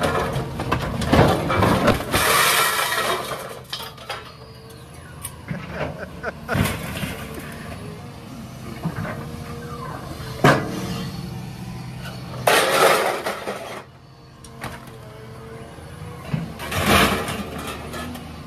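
Caterpillar hydraulic excavator's diesel engine running steadily while its bucket lifts scrap metal and appliances off a utility trailer and drops them onto a scrap pile. Metal clatters and crashes loudly several times: a cluster in the first few seconds, a sharp bang about halfway through, and more crashes later on.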